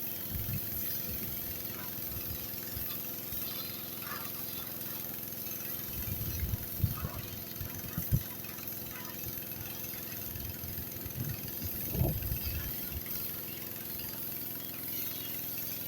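Pressure washer's horizontal-shaft Honda engine running steadily, with a steady high hiss of the spray. A few dull low thumps come in the middle of the stretch.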